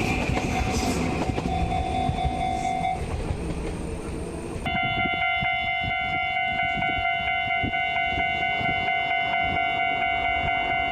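A train running past with a rumbling rush of noise. About halfway through, the sound switches abruptly to a railway level-crossing alarm ringing its rapid repeating 'kan-kan' tone.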